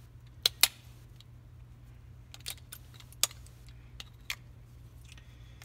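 Sharp clicks and taps of CR123A batteries being set into the battery compartment of a Steiner MK3 weapon light and the compartment door being handled: a close pair of clicks about half a second in, then a few more scattered ones, the loudest near the middle.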